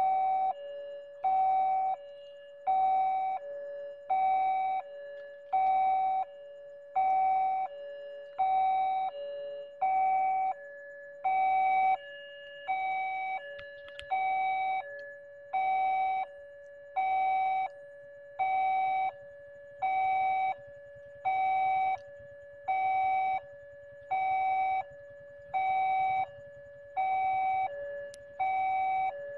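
Railway level-crossing warning bell ringing, an electronic two-tone chime repeating evenly about once every one and a half seconds while the barrier is down. A low rumble builds beneath it in the second half.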